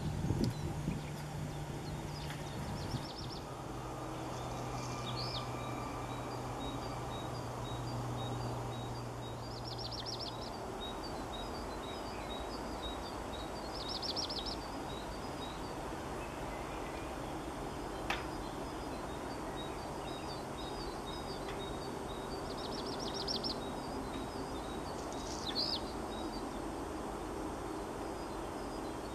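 Male black redstart singing its territorial song several times over: short whistled phrases and a dry, crackling scratchy burst, the song repeating every few seconds over a steady background hum.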